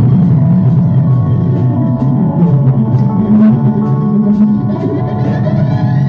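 Loud rock music from a band with guitar and drum kit, a cymbal or hi-hat striking steadily about four times a second over thick low guitar and bass.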